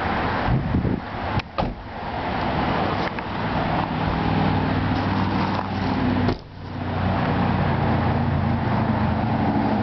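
Car engine idling with a steady low hum, with wind noise on the microphone. A car door shuts with a sharp knock about one and a half seconds in.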